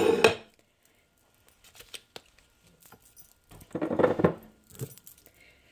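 Handling noise on a wooden tabletop: a plastic tofu press on a ceramic plate being moved, with a short scraping rustle right at the start, faint light clicks and taps, and a second scraping rustle about four seconds in.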